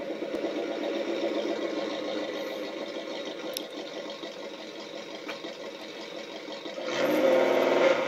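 Tamiya MFC-02 sound unit playing a simulated V8 engine through its small chassis speaker: a steady, evenly pulsing idle that revs up louder near the end.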